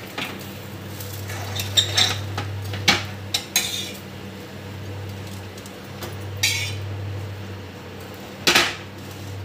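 Steel spatula clicking and scraping on a flat tawa griddle as toasted pav buns are lifted and turned: a few sharp clicks in the first half, then three longer scrapes, the last the loudest. A steady low hum runs underneath.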